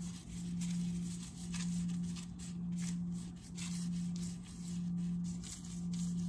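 A plastic-gloved hand rubbing mustard and seasoning into raw salmon fillets, making soft smearing and rubbing sounds. Under it runs a steady low hum that swells and fades about once a second.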